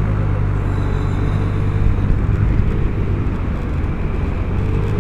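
Vespa GTS300 HPE scooter's single-cylinder engine running at a steady cruise, over a steady rush of wind and road noise.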